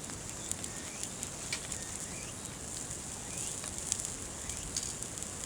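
Outdoor summer ambience: a steady high-pitched insect buzz with scattered short bird chirps and a few faint ticks.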